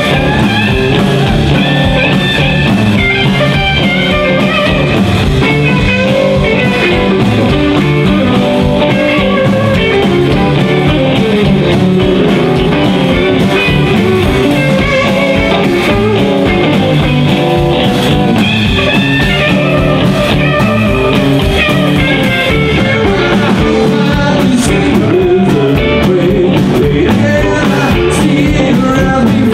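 Live band music in a rock-and-roll/blues style: electric guitars playing over upright double bass and drums, loud and without a break. Vocals come in near the end.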